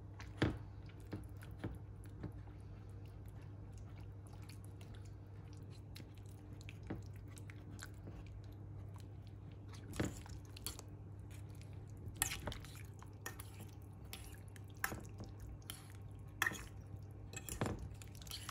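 A fork stirring and breaking up a creamy baked vegetable casserole in a ceramic baking dish: soft wet squelching with scattered clicks of the fork against the dish, over a steady low hum.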